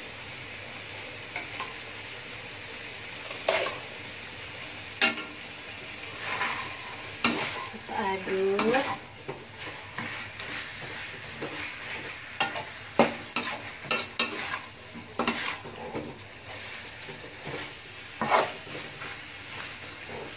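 Metal spatula stirring and scraping chicken and spice paste around a wok, with irregular clanks and scrapes against the pan over a low, steady sizzle.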